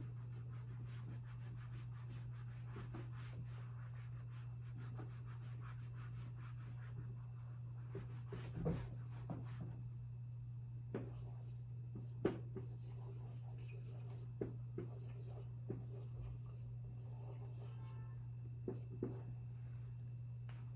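Faint handwriting: a pen scratching across a writing surface, with a few short taps of the pen, over a steady low hum.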